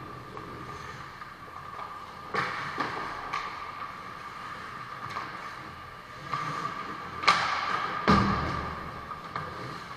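Ice hockey play at close range: skates scraping on the ice and sharp knocks of sticks and puck. The loudest knocks come about seven and eight seconds in, the second with a heavy thump. A steady high hum runs under it.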